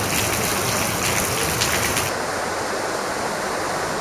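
Heavy rain squall pouring down onto paving stones, a steady rushing hiss. About two seconds in it turns duller, with much less of the high hiss.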